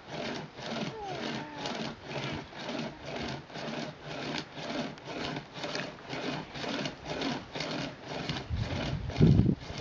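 Hand-pulled pocket chain saw (Chain Mate) cutting through wood in quick back-and-forth strokes, about three a second, each stroke a rasping rub of the chain through the wood. A loud low thump comes near the end.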